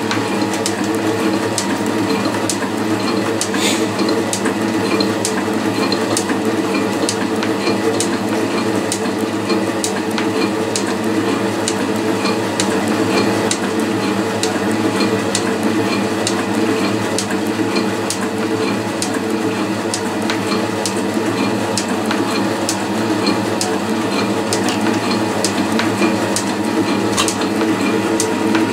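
Metal shaper running, its ram stroking back and forth as the tool takes light cuts across a metal block held in a vise. A steady mechanical hum with a sharp click at each stroke, evenly spaced throughout.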